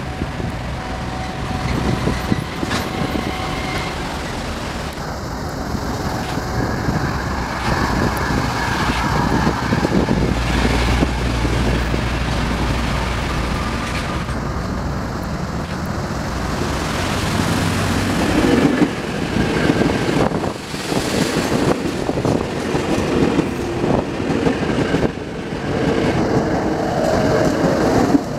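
KRL Commuterline electric multiple unit train approaching and running past, with a continuous rumble of wheels on the rails that grows louder. A whining tone from the train comes in during the last few seconds as it passes close by.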